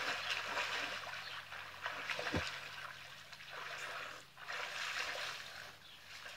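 Pool water splashing and trickling as a swimmer moves through it near the ladder.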